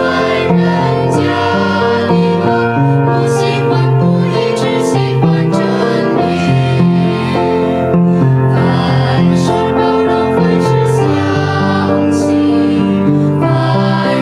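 Small mixed choir of women and men singing a Mandarin hymn in held, stepping notes.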